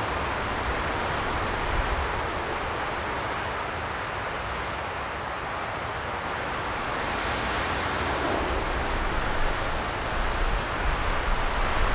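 Strong wind blowing hard and steadily, with gusts buffeting the microphone in a low rumble during the last few seconds.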